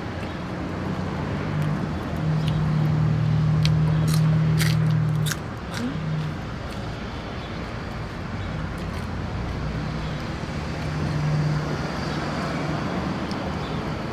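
Low, steady hum of passing road traffic, swelling about two seconds in for some three seconds and again near the end, with a few sharp clicks in the middle.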